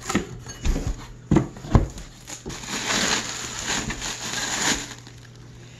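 A cardboard shipping box being opened by hand: a few knocks and scrapes from the flaps in the first couple of seconds, then a stretch of rustling and crinkling from the plastic wrap packed around the new snowmobile track inside.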